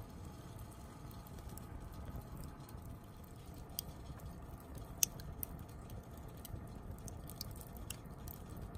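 Wood campfire crackling, with scattered sharp pops over a low steady rumble; the loudest pop comes about five seconds in.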